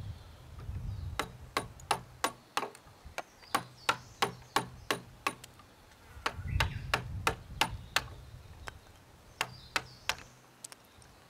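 A steel chisel being struck over and over, its edge chopping into a seasoned chestnut beam to cut out waste wood for a splice joint. Sharp knocks come in runs of quick blows, about three a second, with short pauses between the runs.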